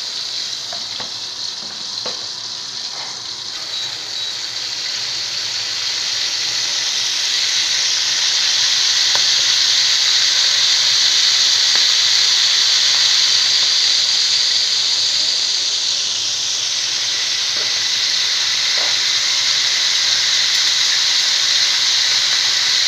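Chicken pieces shallow-frying in hot oil in a steel pan: a steady sizzle that swells louder after about six seconds and then holds. A few light clicks come in the first seconds.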